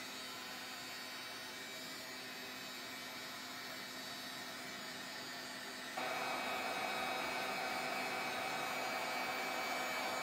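Handheld craft heat tool blowing steadily, drying wet water-based stain on a card; about six seconds in it gets suddenly louder and stays so.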